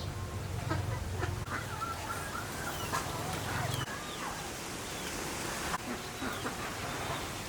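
Farmyard poultry calling: a string of short calls, several sliding downward in pitch, over a low rumble that stops about four seconds in.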